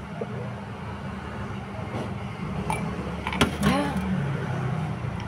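A drinking glass set down on the table with a sharp clack about three and a half seconds in, followed at once by a brief sound that slides in pitch. A steady low hum runs underneath throughout.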